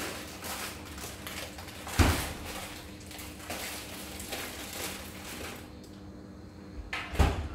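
Seaweed and pork soup bubbling in an aluminium pot, a crackly simmer that fades after about five seconds. Two dull thumps, one about two seconds in and a louder one near the end, stand out above it.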